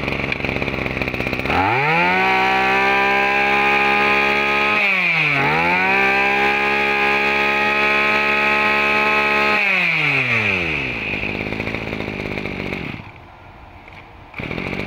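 Small 23cc two-stroke engine of a used Japanese Maru brush cutter catching and running, then revved to a high steady whine for about eight seconds. The throttle is let off and reopened once about five seconds in. It drops back to idle near the ten-second mark and stops about thirteen seconds in.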